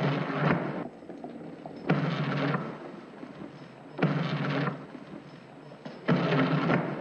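Hard plastic wheels of a child's Big Wheel tricycle rolling, a loud rumbling clatter on bare hardwood floor that drops to a quieter roll as the wheels pass onto rugs. The loud stretches come four times, about two seconds apart.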